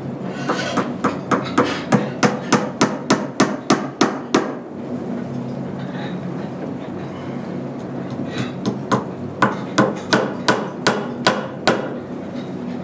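A hammer striking in two runs of quick, even blows, about three a second, with a pause of about four seconds between the runs.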